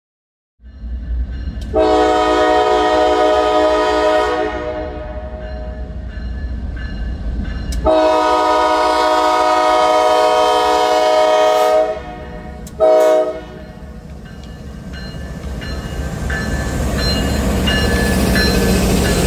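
Diesel freight locomotive's air horn sounding a grade-crossing warning: two long blasts and a short one. After the horn, the engine rumble of the lead locomotives grows as the train nears, with a crossing bell dinging over it.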